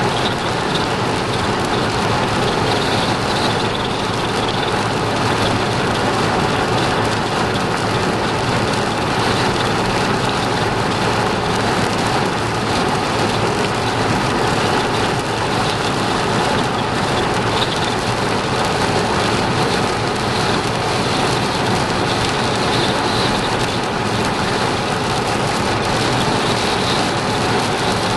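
Heavy rain falling steadily on a vehicle, a dense, even hiss with no let-up.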